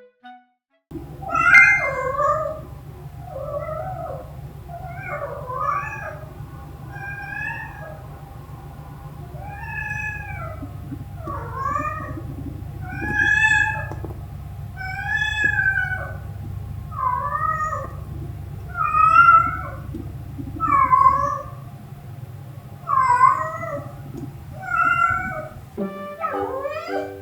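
Domestic cat meowing over and over, one call every second or two, each meow bending up and down in pitch, the insistent calling of a cat trying to wake its owner.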